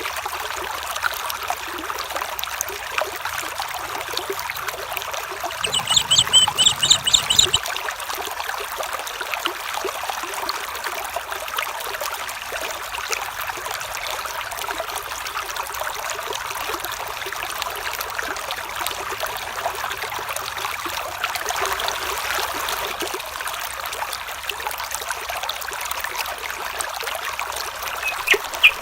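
Stream water trickling steadily. About six seconds in, a louder sound with a high, repeated call lasts around two seconds, and short high calls begin near the end.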